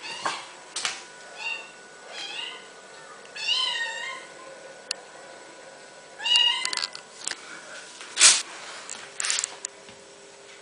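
Domestic cat meowing repeatedly, about five calls, the longest one bending up and down in pitch. A sharp knock about eight seconds in is the loudest sound, followed by a brief scuffle.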